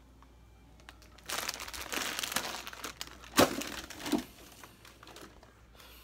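A chip bag crinkling as it is handled, starting about a second in and lasting a few seconds, with one sharp crackle in the middle.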